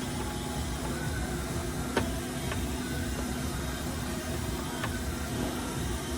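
Steady low background hum with a few light, sharp clicks over it, the loudest about two seconds in.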